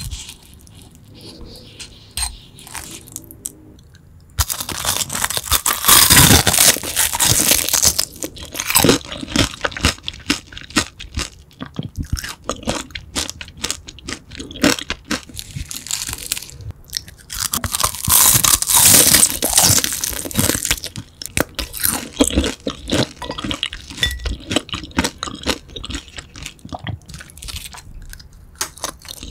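Close-miked crunching and chewing of crispy grilled beef large intestine (tongdaechang), its fried casing crackling in dense bursts. The crunching starts about four seconds in and is loudest in two stretches, around the middle and later on.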